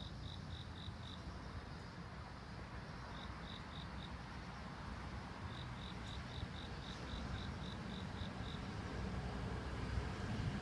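An insect chirping in runs of short, high chirps, about four a second, with pauses between the runs. Under it a low rumble grows steadily louder through the second half as an E3-series Shinkansen train approaches.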